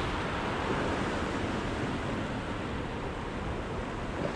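Steady rush of sea waves washing against a rocky shore.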